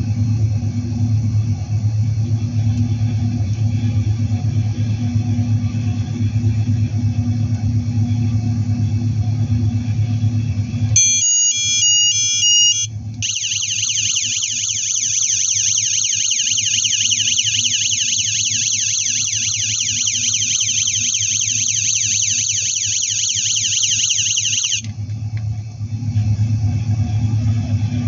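Electronic sound module of a toy police motorcycle model, playing through its small built-in speaker: a recorded motorcycle engine running. About 11 seconds in it switches to a short electronic beeping tune, then to a fast, repeating high-pitched yelp siren for about 12 seconds, and near the end goes back to the engine sound.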